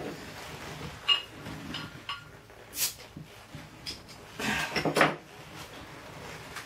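Glass beer bottle being opened by hand: scattered clinks, clicks and scrapes of the cap and glass, with the busiest stretch of handling noise around four to five seconds in.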